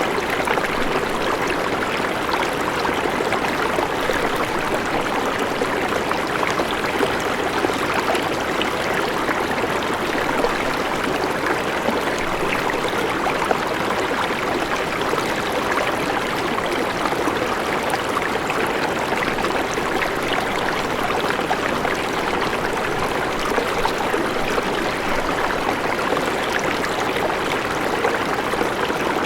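A river flowing over rocks: a steady rush of water with fine splashing and trickling detail, unchanging throughout.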